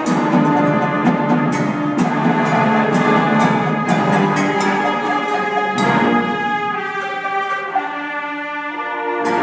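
Symphonic band playing: brass and woodwind chords over a steady beat of sharp percussion strikes. About six seconds in, the percussion and the low instruments drop out, leaving sustained wind chords.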